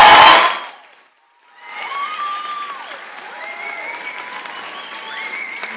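Audience applause with scattered high shouts and whoops. The loud opening sound fades out within the first second, and after a short silence the applause and cheering come back and carry on.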